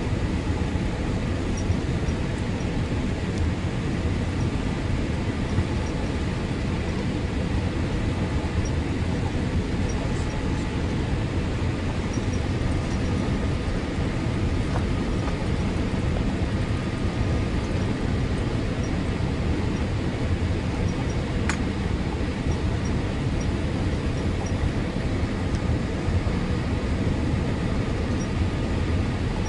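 Steady cabin roar of a Boeing 787 airliner descending on final approach, engine and airflow noise heard from a window seat over the wing, with faint steady whines.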